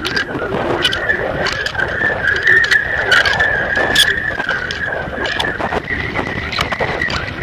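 Wind buffeting a camera mounted on a flying kite, with a steady high whine that wavers slightly in pitch and irregular clicks and knocks as the shaking kite rattles the camera.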